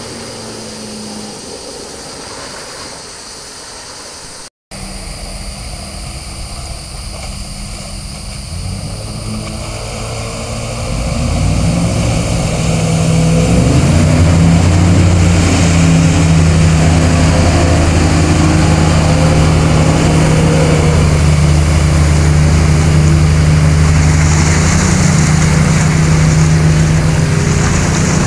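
Motor of a small Mako center-console boat running as it comes up the river, quiet at first with a brief dropout about four seconds in, then growing louder from about ten seconds and running loud and steady through the rest as the boat passes close.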